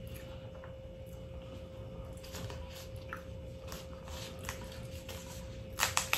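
Crab-leg shells clicking and rustling as gloved hands handle them in a glass bowl, with scattered small clicks and a few louder ones near the end, over a faint steady hum.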